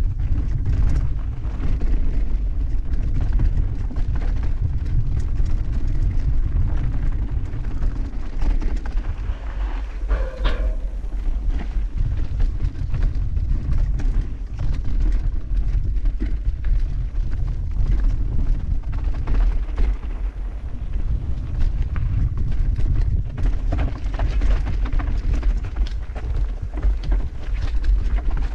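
Mountain bike descending a trail at speed, heard from a bike-mounted action camera: wind buffeting the microphone as a steady low rumble, with a constant rattle and knocks from the tyres and bike over gravel, rocks and roots. A brief high-pitched squeal about ten seconds in.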